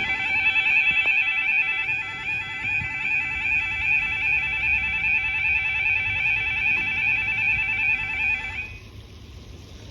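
Level crossing audible warning alarm sounding with an unusually fast, rapidly alternating warble of tones, which the recordist takes for a fault in the alarm. It cuts off suddenly near the end.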